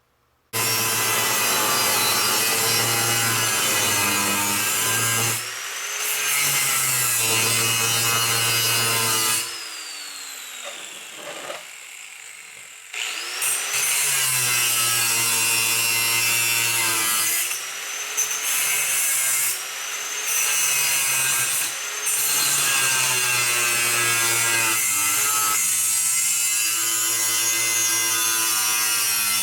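Electric cutting tool with a blade running under load as it cuts a steel exhaust-manifold bolt 3/16 in shorter. The motor stops about nine seconds in with a falling whine, then spins back up with a rising whine a few seconds later and keeps cutting, with a few short dips.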